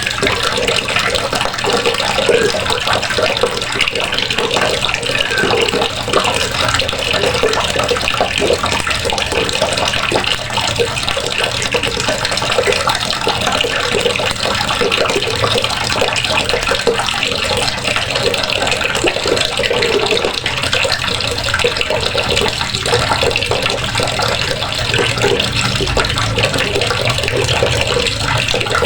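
Water running steadily from a faucet and splashing into the basin or tub below.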